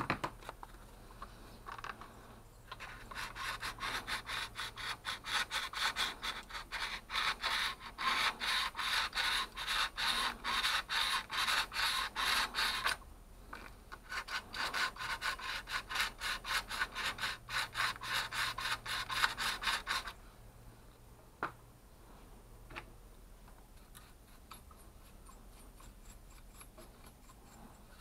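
Stiff paintbrush bristles scrubbing dirt off a two-stroke STIHL hedge trimmer engine's cooling fins and flywheel in quick back-and-forth strokes. It scrubs for about ten seconds, pauses briefly, scrubs for about six seconds more, then stops.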